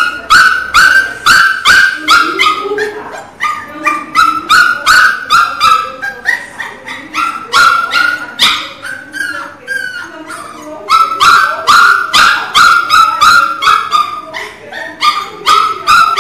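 Pinscher puppy crying loudly: a rapid run of short, high-pitched yelps and whimpers, about three a second, broken by brief pauses about six and ten seconds in.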